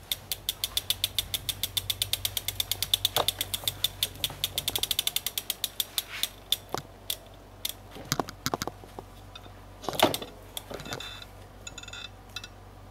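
Freewheel of a Federal City Cat cargo bike ticking quickly and evenly as the bike is moved, thinning out after about five seconds into scattered clicks and knocks of the bike being handled, with one loud knock about ten seconds in.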